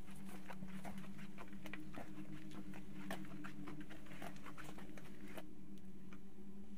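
A low steady hum with many irregular clicks and taps over it; the clicks thin out about five and a half seconds in.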